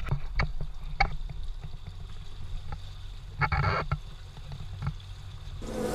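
Low steady rumble of water with a few sharp knocks and a brief splash-like rush about three and a half seconds in.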